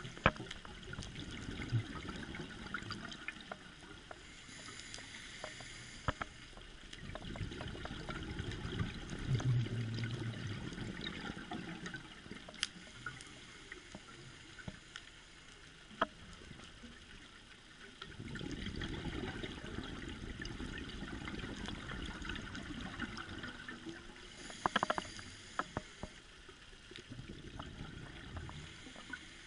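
Underwater sound on a scuba dive: the diver's exhaled regulator bubbles come in long, low bubbling bursts every several seconds, one per breath. Scattered sharp clicks run over a steady hiss.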